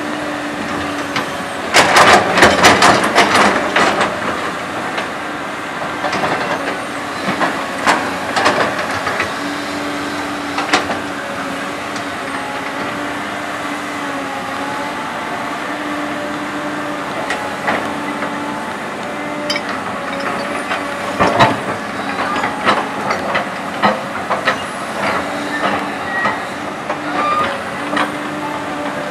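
CAT 320D hydraulic excavator working: its diesel engine running under load with a steady hum and a whining tone that comes and goes as the hydraulics work. Several bursts of knocking and scraping come from the bucket digging into the soil and lifting earth, about two seconds in, again around eight seconds, past twenty seconds, and repeatedly near the end.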